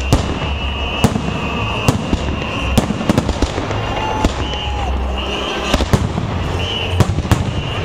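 Holiday fireworks salute: sharp bangs of bursting shells, sometimes several in quick succession, over a steady low rumble, with a high wavering tone coming and going.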